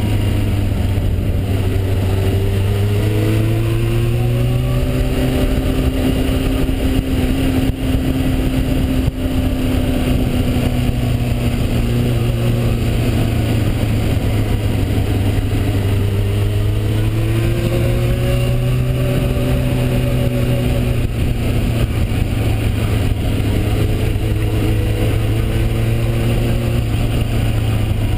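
Suzuki 750 motorcycle engine running under way, its pitch rising and falling a few times as the rider accelerates and eases off.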